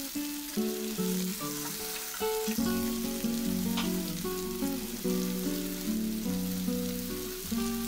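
Soya chunks, diced potatoes and onions sizzling as they fry in oil in a kadai, under instrumental background music playing a steady run of notes.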